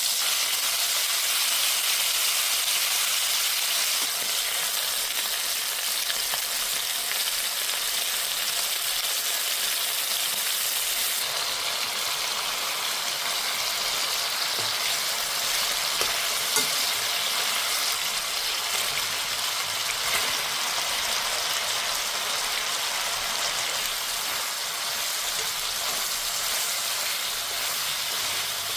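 Food sizzling steadily in a hot frying pan in rendered chicken fat. The sizzle gets brighter and more hissy about eleven seconds in, with a few light clicks of a utensil against the pan.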